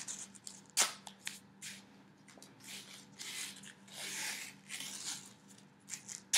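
Athletic tape being pulled off the roll in rasping stretches and torn off with a few sharp snaps, as anchor strips are laid around the top of the ankle.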